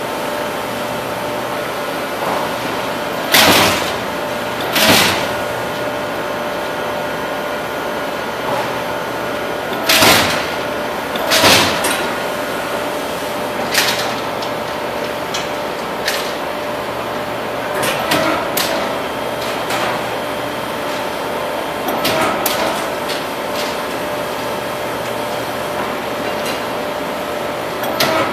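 Nisshinbo HIQ-1250 22-ton CNC turret punch running a job: a steady machine hum with a few steady tones, broken by sharp metal strikes as the ram punches the steel sheet. The strikes come singly or in pairs at uneven gaps of one to several seconds, about a dozen in all, the loudest a few seconds in and again about ten seconds in.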